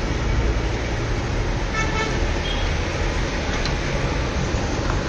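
Steady traffic noise with a short horn toot about two seconds in.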